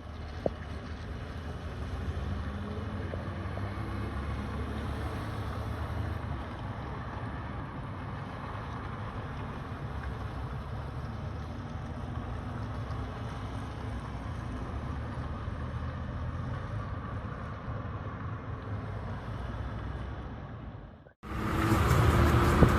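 Steady low outdoor rumble with wind buffeting the microphone. There is a single faint click about half a second in. About 21 s in the sound cuts out abruptly and a louder stretch of noise begins.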